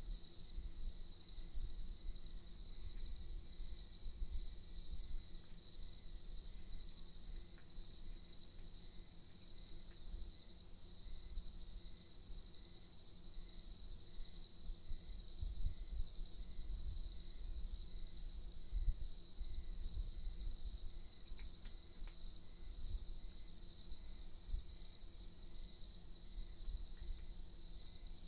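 Crickets chirping in a steady night chorus of fast, high pulses, with a fainter slower chirp about once a second and an uneven low rumble underneath.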